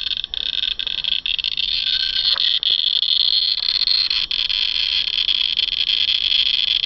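Radiation Alert Inspector Geiger counter clicking so fast that the clicks run together into a steady buzzing chatter. It reads about 1,500 counts per minute against a normal background of 30, from the radioactive PET scan tracer still in the body it is held against.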